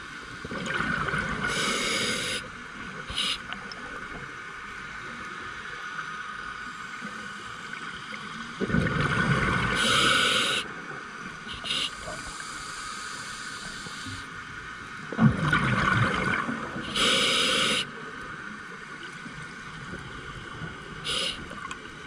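Scuba diver breathing through an open-circuit regulator underwater: three breaths about seven seconds apart, each a hiss of air through the regulator and a rumbling rush of exhaust bubbles.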